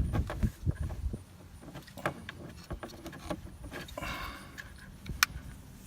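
Scattered clicks and rattles of hard plastic as the clips holding a car's turn signal switch are worked loose on the steering column, with a short scrape about four seconds in and a sharp click just after five seconds.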